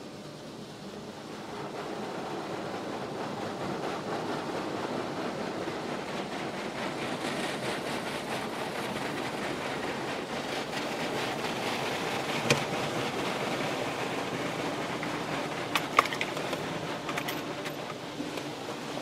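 Water from a Christ Varius gantry car wash spraying and sheeting onto the car, heard as a steady rushing hiss from inside the closed cabin, growing louder about two seconds in. A few sharp knocks sound on the body about two-thirds of the way through.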